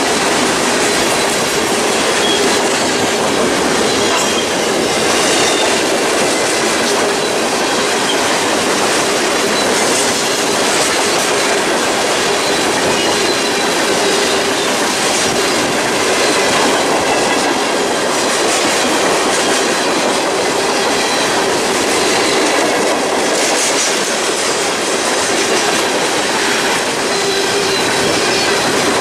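Freight train cars rolling past close by: a steady, loud noise of steel wheels on the rails, with faint high-pitched wheel squeal.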